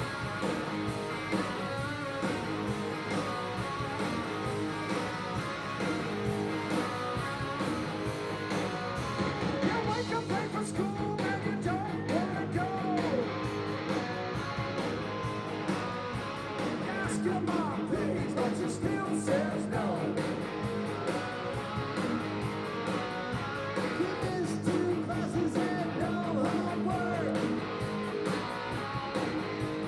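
Live rock band playing through a PA: electric guitars, bass, keyboard and drums. A woman's lead vocal comes in about ten seconds in and carries on over the band.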